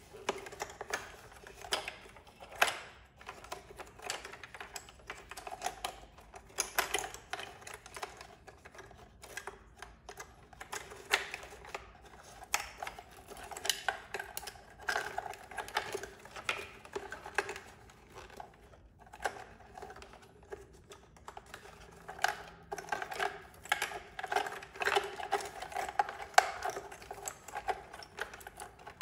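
Plastic wiring connectors and braided harness clicking and rattling against the motorcycle's plastic parts as they are pulled through a tight gap one at a time: an irregular string of small clicks and rustles.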